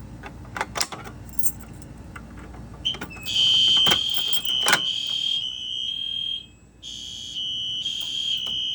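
A few sharp clicks, then about three seconds in a fire alarm horn starts sounding a loud, high steady tone. It breaks off briefly a little past halfway and sounds again, activated as part of a fire alarm system test.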